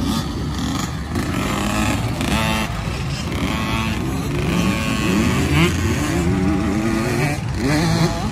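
Several small kids' dirt bikes riding past together, their engines overlapping and revving up and down. The pitch climbs steeply several times as the riders open the throttle out of the bend.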